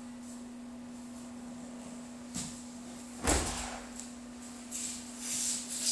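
A person landing on the mat with one heavy thud about three seconds in, as an aikido throw ends in a breakfall. Softer swishes of feet and training uniforms come before and after it, over a steady hum.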